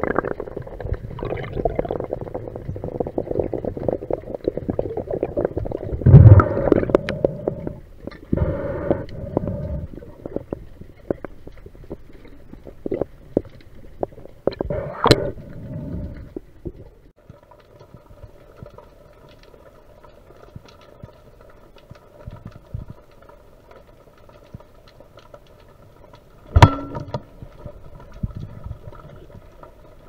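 Underwater noise heard through a diving camera's housing: water swishing and gurgling as the spearfisher moves, broken by sharp knocks and thumps, the loudest about six seconds in. From about halfway it goes quieter, with a faint steady hum underneath.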